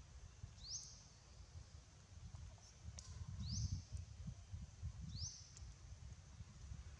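A high call that sweeps sharply upward and then holds briefly, repeated about every two seconds, over a faint low rumble.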